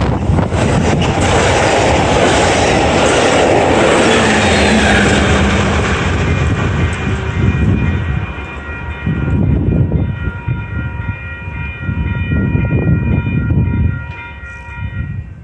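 Amtrak Pacific Surfliner bilevel passenger train passing at speed, a loud rush of wheels and cars that fades about halfway through as the train pulls away. A low rumble is left, with a steady high ringing tone over it.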